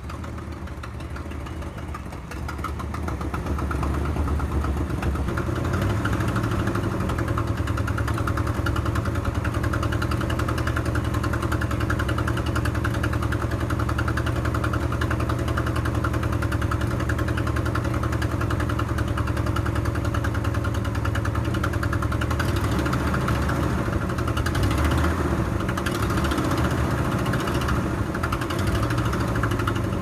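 1959 Ford Thunderbird's V8 engine running as the car rolls up toward the listener, growing louder over the first few seconds, then idling steadily.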